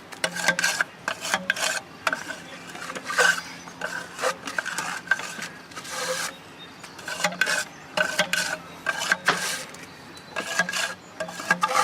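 Repeated irregular scraping and rubbing strokes as fireworks mortar tubes in their racks are cleaned out, with a faint steady low hum underneath.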